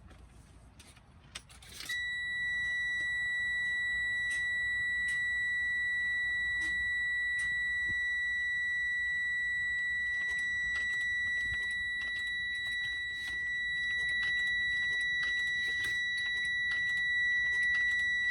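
A semi truck's dashboard warning buzzer sounding one continuous high-pitched tone, switched on about two seconds in, with scattered light clicks over it.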